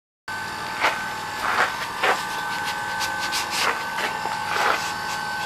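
A plastic bottle being worked into a metal spud-gun barrel, rubbing and scraping against the metal about six times, over a steady high hum.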